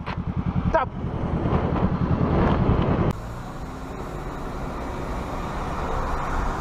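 A motorcycle engine running with wind rush over it, pulsing steadily. About three seconds in it cuts off abruptly to a quieter, steady hum of car road noise.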